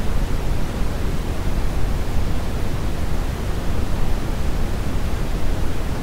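Steady brown noise, a calibrated test signal whose level falls 6 dB per octave, so it is a deep, even rumbling hiss, heaviest in the bass and with little treble.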